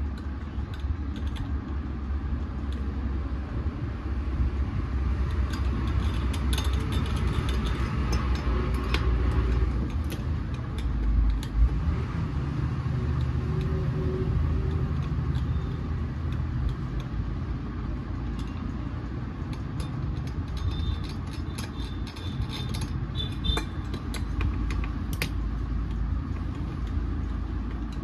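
Steady low mechanical rumble, like a nearby engine, under scattered light metallic clicks and taps as parts of a dismantled petrol chainsaw are handled around its cylinder.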